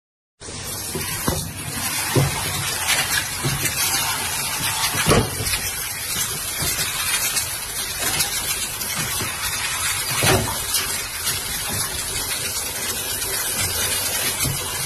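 Steady gush of running water, with a few short knocks.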